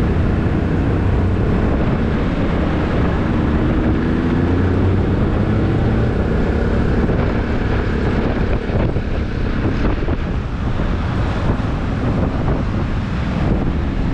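Vespa scooter engine running while riding through city traffic, heard under heavy wind buffeting on the microphone.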